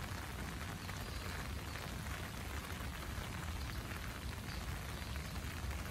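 Steady rain falling on foliage and wet ground, an even hiss with a low rumble beneath it.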